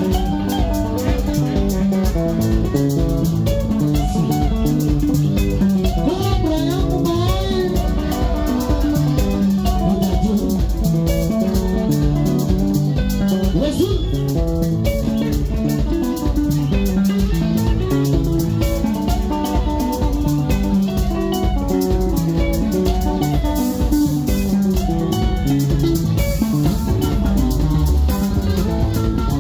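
Live sungura band playing a fast, steady beat: electric guitar lines over bass guitar and drum kit.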